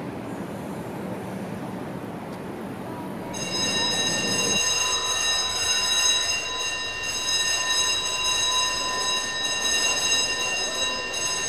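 Traffic noise from a city street, then a steady high ringing tone with a stack of overtones starts about three seconds in and holds unchanged. The street noise cuts out about a second after the tone begins.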